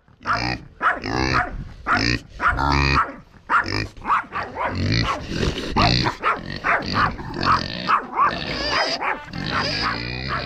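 Pigs calling loudly over and over, short squealing grunts coming one to two a second.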